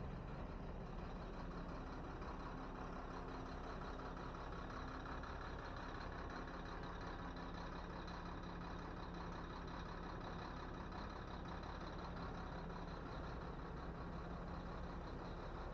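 A vehicle engine running steadily, with an even low hum and constant noise and no sudden events.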